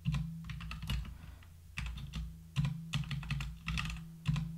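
Typing on a computer keyboard: irregular runs of keystrokes, with a steady low hum underneath.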